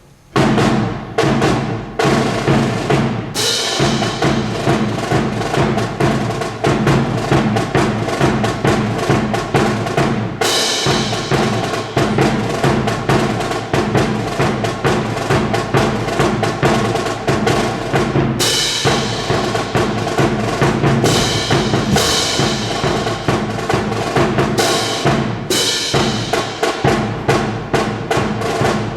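Military band playing a swing-style march with snare and bass drum driving the beat, brass coming in with loud swells several times.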